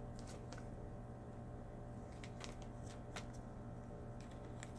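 Faint, scattered clicks and rustles of trading cards and a plastic card sleeve being handled, over a steady low hum.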